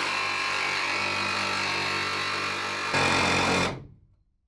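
Power tool running steadily while cutting the van's sheet-metal body at the window opening, louder for its last second before it cuts off suddenly.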